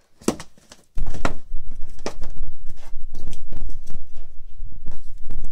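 Handling noise: a hand rubbing over the phone's microphone, with several sharp clicks of plastic Blu-ray cases being knocked and moved.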